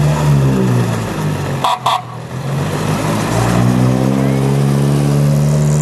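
Vintage open roadster's engine driving past, its note first dropping, then rising and holding steady as the car pulls by. Two short toots sound just under two seconds in.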